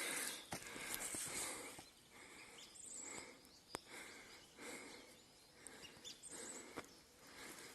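Faint birdsong in woodland, two short high trills heard about a third of the way in and again near the end, over a soft rustling noise that comes and goes.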